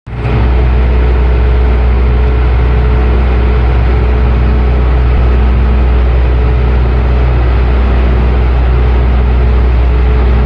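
A heavy pile-driving rig running steadily, with a deep, even hum and no change in speed. The ERV8 is a side-clamp robotic pile driver attachment.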